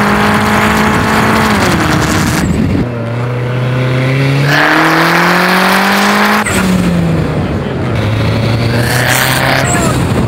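Turbocharged Mitsubishi Eclipse engine driven hard under load, with heavy wind and road noise. The engine note drops near two seconds in, climbs again from about three to six and a half seconds, then drops and holds a lower steady note to the end.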